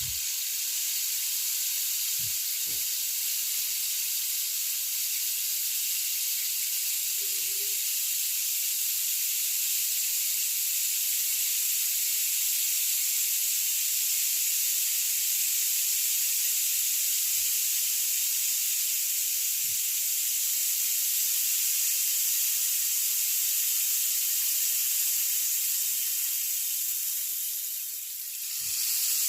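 A 120 cm rainstick pouring: a long, steady rush of grains trickling down through the tube. It dips briefly near the end, then swells again.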